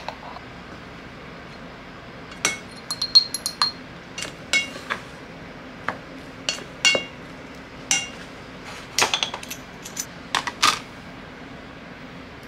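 Plastic rice paddle knocking and scraping against a rice cooker's inner pot while mixing flaked salmon into cooked rice: a run of irregular clinks and knocks, some with a short ringing tone.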